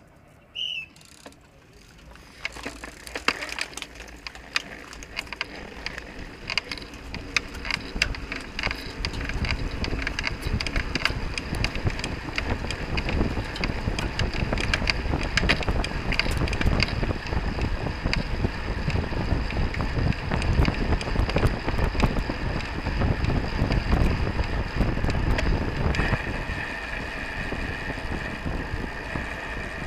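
A road bicycle race pack setting off from a standstill, heard through an action camera. About a second in there is a short high tone, then clicking from cleats and drivetrains as riders get going. Wind rush on the microphone and tyre noise build steadily over the first ten seconds as the pack picks up speed, and a steady higher whir joins near the end.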